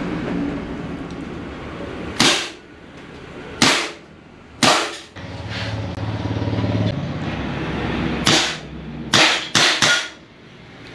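CO2-powered Umarex Walther replica air pistol firing seven sharp shots: three about a second apart, then after a pause four more in quicker succession near the end.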